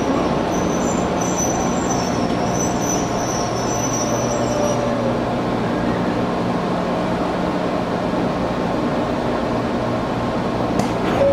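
Interior running noise of an Izuhakone Railway 1300 series electric train car in motion, a steady rumble of wheels on rail under strong air conditioning. A high-pitched squeal from the wheels sounds over the first five seconds or so, and a sharp click comes near the end.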